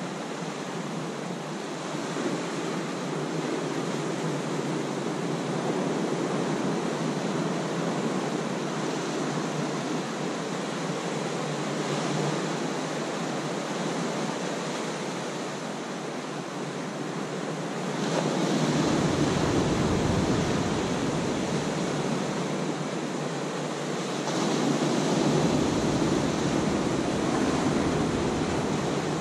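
Ocean surf washing in over shoreline rocks as a steady rushing hiss. It swells louder with a deeper rumble about two-thirds of the way through and again near the end.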